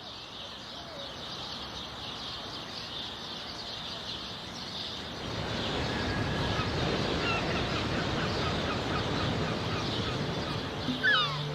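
Birds chirping over a steady rushing noise that grows louder about halfway through; steady music tones begin near the end.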